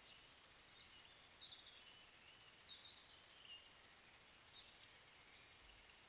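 Near silence: a steady faint hiss with a few faint, short high chirps scattered through it.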